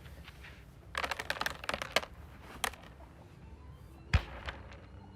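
A quick run of small clicks and rattles about a second in, lasting about a second, another click shortly after, and a single heavy thump near the end.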